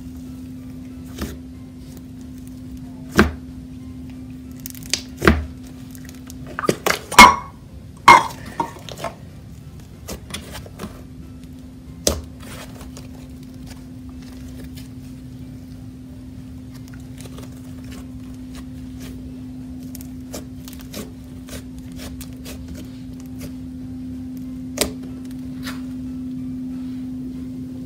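Butter slime squeezed, folded and poked by hand, giving sticky clicks and pops. They come in a loud cluster a few seconds in, then sparser. A steady low hum runs underneath.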